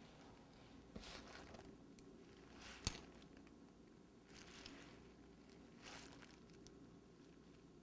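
Near silence with faint handling rustles of small decorating work, and one sharp click about three seconds in.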